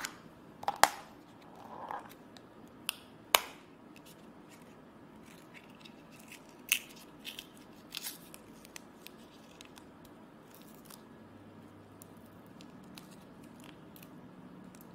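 Rolls of washi tape being handled and set down on a tabletop: a few sharp clicks and taps, loudest in the first few seconds, then quieter handling and light rustling.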